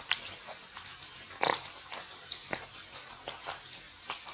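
Monkeys making short, sharp squeaks and mouth clicks, about two a second, the loudest about one and a half seconds in.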